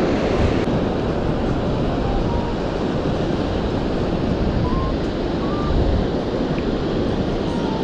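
Waves breaking and washing up a sandy beach, with wind buffeting the microphone: a steady, unbroken rush of surf noise.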